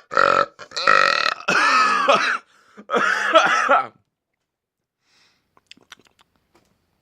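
A man burping deliberately: four long, loud, drawn-out burps in quick succession, the last ending about four seconds in.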